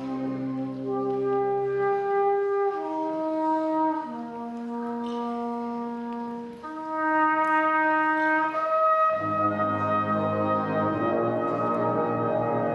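Tenor horn playing a slow, held solo melody with little accompaniment. About nine seconds in, the full brass band comes in louder beneath it.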